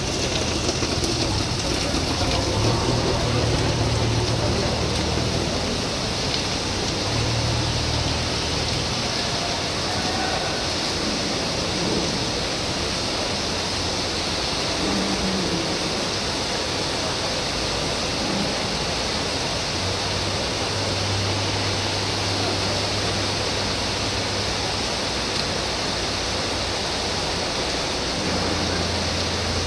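Steady hiss of heavy thunderstorm rain pouring down and running over flooded pavement, with a low rumble that comes and goes underneath.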